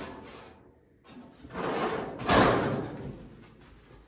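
Interior doors being handled: a sliding rumble that ends in a thump about two seconds in, then fades slowly.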